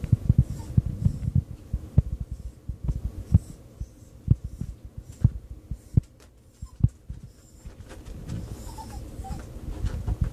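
Irregular soft thumps and light knocks from a small terrier's paws shifting on a wooden surface, close together for the first couple of seconds, then single knocks every second or so.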